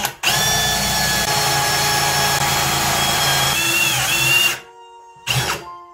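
Milwaukee cordless hammer drill driver trying to drive a self-drilling screw into 12 mm steel H-beam. The motor whine is steady for about four seconds, dips in pitch as it bogs under load, and stops. A brief second pull of the trigger follows near the end. The screw fails to go in.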